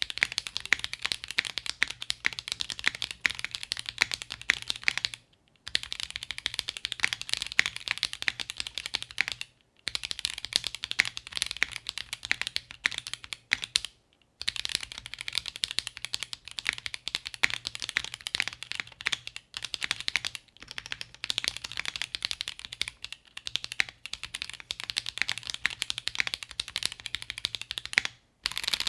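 Fast typing on a mechanical keyboard with Kailh Xuan light tactile switches (MF stem, LCP housing): a dense run of bright keystroke clicks in stretches of several seconds, stopping briefly three or four times.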